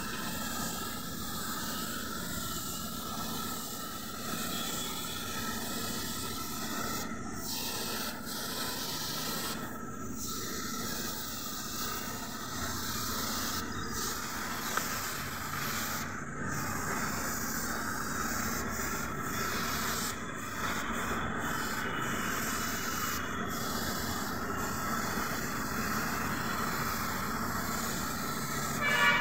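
Compressed-air gravity-feed spray gun hissing steadily as it sprays paint, broken by a few brief pauses.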